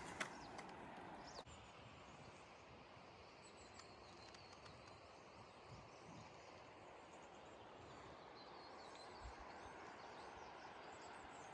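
Near silence: faint outdoor hiss with a few faint, high bird chirps.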